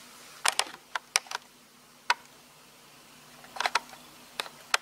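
Sharp, irregular clicks and ticks of camera handling while zooming, several coming in quick pairs and triples, over a faint steady hum.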